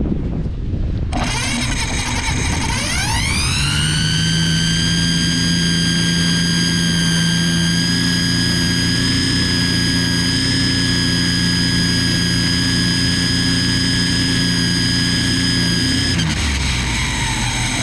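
Ryobi string trimmer spinning up with a rising whine, running at a steady high whine for about twelve seconds, then winding down near the end.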